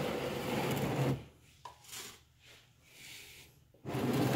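Plastic oil drain container scraping as it is slid across a concrete floor: one drag of about a second, a short quiet stretch with a light knock, and a second drag near the end.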